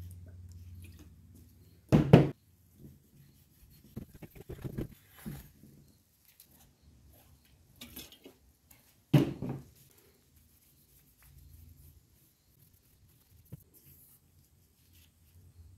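Cloth wiping and rubbing on the gasket faces of a differential housing and its finned aluminium cover, with soft handling noises and two sharp knocks of parts or a can set down on the bench, about two seconds in and about nine seconds in. A low hum fades out in the first second or so.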